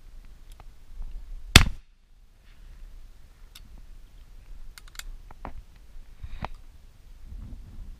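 A single shotgun shot about one and a half seconds in, followed by a scatter of small clicks and knocks as the gun and hide netting are handled.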